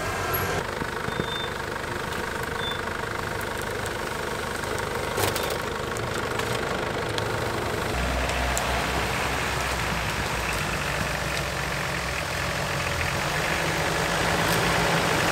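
Off-road 4x4 engines running at low revs as the vehicles crawl through snow. A deeper, steadier engine drone comes in about halfway through.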